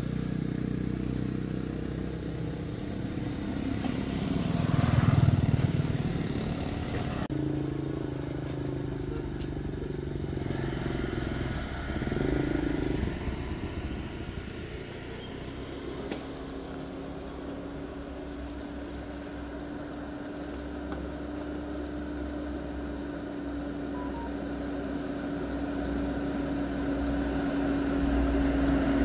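A motor vehicle engine running, swelling about five seconds in, then settling into a steady hum from about halfway through.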